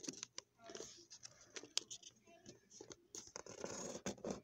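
A sheet of origami paper being handled, folded and creased by hand: irregular crisp clicks and short papery rustles as fingers slide along the crease.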